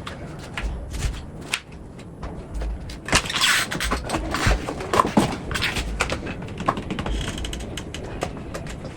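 Kitchen handling noises: irregular clicks and knocks, with a brief rustle and a cluster of louder knocks from about three to five seconds in.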